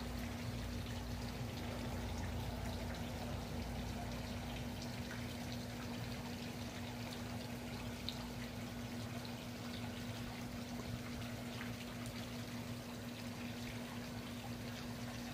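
Steady rushing background noise with a constant low hum underneath, and a few faint ticks.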